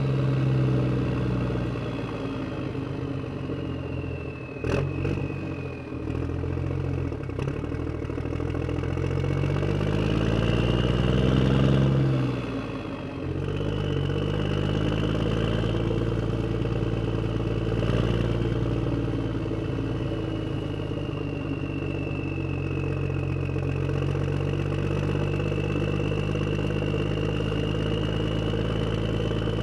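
A motor vehicle's engine running, with a sharp click about five seconds in. The engine revs up from about nine seconds and drops back suddenly around twelve seconds, then runs steadily with a faint high whine that wavers in pitch.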